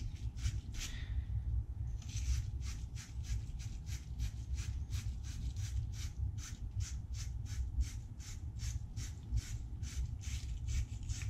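Wire fitting brush scrubbing the inside of a copper pipe fitting, a rhythmic scratching of about three strokes a second, cleaning the copper bare for soldering.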